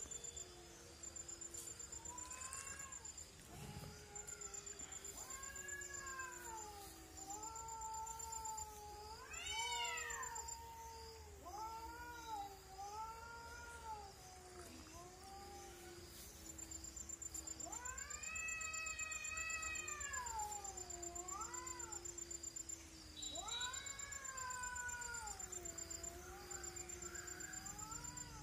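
Two cats caterwauling at each other in a territorial standoff: long, drawn-out yowls that rise and fall in pitch, one after another, with a louder rising howl about ten seconds in and another longer one a little past the middle.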